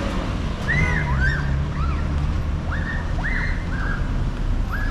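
Bird chirping: about eight short, arched whistled notes at irregular intervals, over a steady low hum and street noise.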